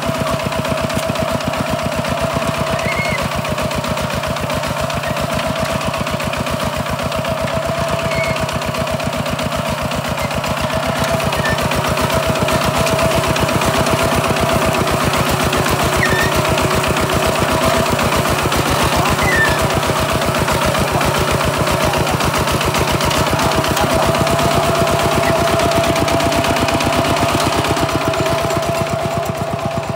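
Single-cylinder diesel engine of a two-wheel walking tractor running steadily under load while it pulls a disc plough through soil, with a fast, even firing beat. It gets a little louder from about twelve seconds in.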